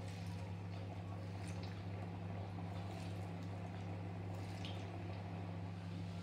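Potato French fries frying in hot oil: a steady bubbling sizzle with faint small crackles, over a steady low hum.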